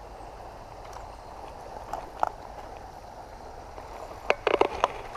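Creek water running steadily, with a brief sharp sound about two seconds in and a quick cluster of short, sharp clicks near the end.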